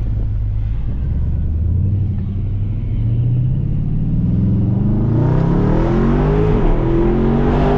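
Jeep Grand Cherokee SRT's V8 engine, heard from inside the cabin, running steadily at first, then accelerating from about three seconds in. Its pitch climbs, dips briefly near the end as it shifts up a gear, and climbs again.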